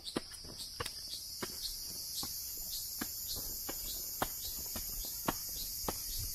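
A steady high-pitched insect chorus, with footsteps on a leaf-strewn trail of earth and log steps coming two or three times a second.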